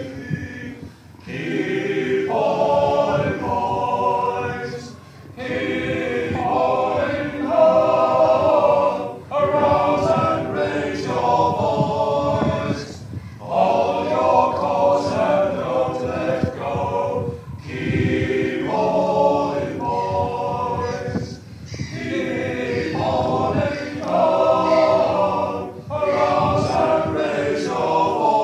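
A group of voices singing in chorus without instruments, in phrases of a few seconds with brief breaks between them.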